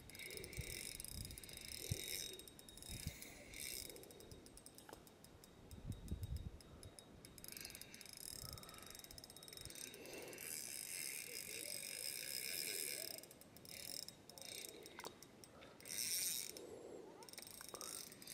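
Fishing reel ticking in repeated bursts as a hooked fish is played and wound in.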